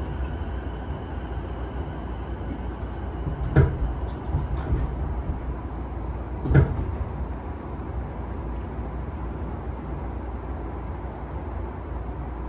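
Onboard a JR East E233-0 series electric train running over jointed rail: a steady rumble of wheels on track, with two loud clicks about three seconds apart as the wheels cross rail joints, and a few fainter clicks between them.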